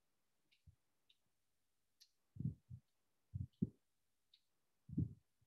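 Soft irregular taps and clicks of a stylus on a tablet screen as a word is handwritten: about half a dozen dull knocks with faint sharper ticks between them.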